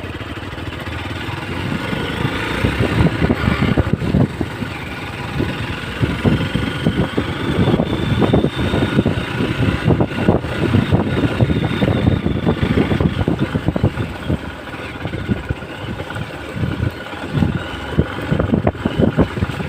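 Hero XPulse 200's single-cylinder engine revving unevenly under load as the motorcycle works up a rough uphill trail, its pitch rising and falling as the throttle surges.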